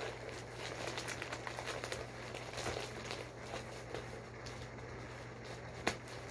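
Scissors cutting open a plastic courier pouch, the plastic crinkling and rustling with many small crackles, and one sharper click near the end.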